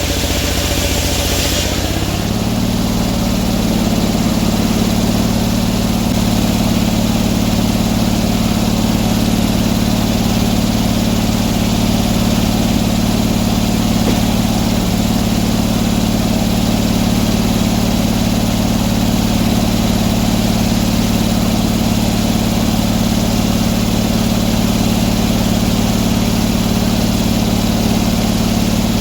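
Portable sawmill's engine running steadily at a constant speed. A hiss over it stops about two seconds in, and the engine note then holds steady.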